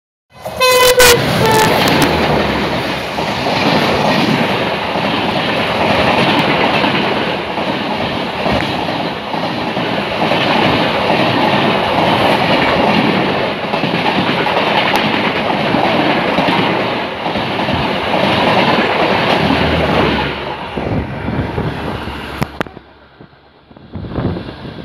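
A locomotive sounds a short horn blast about half a second in. Then a passenger train of LHB coaches passes close on the next track with a loud, steady rush of wheels on rails, which fades away near the end.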